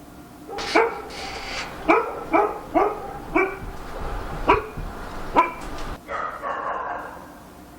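A dog barking: about seven short, sharp barks at uneven intervals, then a longer, drawn-out bark near the end.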